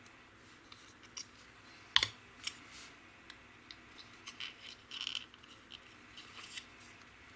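Small hard-plastic model-kit parts being handled and fitted together on a work surface: scattered light clicks and scrapes, the sharpest click about two seconds in and a quick run of them a little past the middle.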